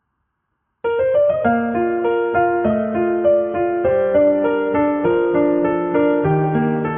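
Background piano music: a calm, steady pattern of sustained notes, starting just under a second in after a moment of silence.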